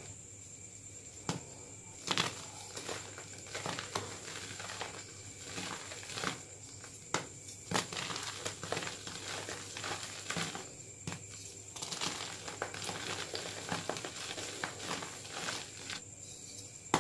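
Plain gym chalk blocks, some topped with slime, crushed and crumbled in bare hands. Irregular dry crunches and crackles are broken by a few short pauses.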